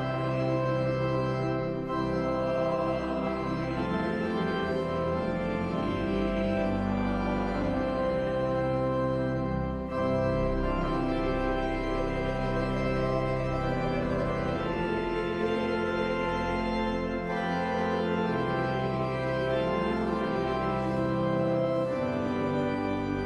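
Church organ playing a hymn, accompanying a congregation singing along.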